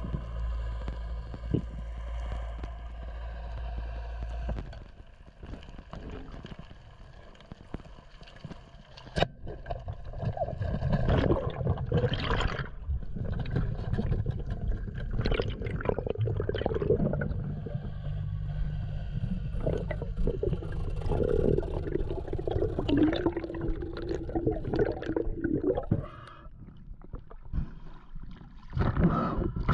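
Water gurgling and sloshing, heard underwater, in irregular uneven surges; a steady hum stops about four seconds in.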